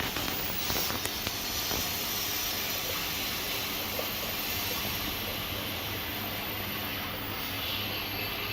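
Steady hiss of workshop machinery or air handling with a constant low hum, a few light clicks about a second in.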